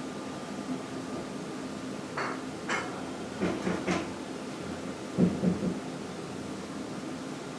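A few short, sharp knocks about two to four seconds in, then a lower cluster of thumps about five seconds in, like doors or objects being handled in a neighbouring flat, over a faint steady hum.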